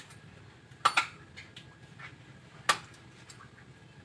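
Sharp knocks or clinks: two in quick succession about a second in, then a single one a little before three seconds.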